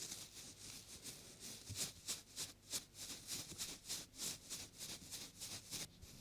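Soft strokes brushing and rubbing against a binaural microphone, repeated about three times a second as faint, airy swishes.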